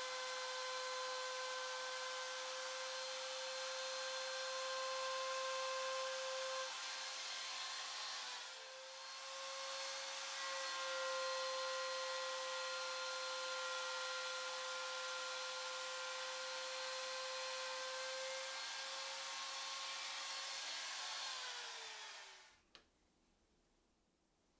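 Compact trim router running at full speed with a steady high whine as it cuts. The whine dips briefly about eight seconds in, and near the end its pitch falls as the motor spins down, then the sound stops.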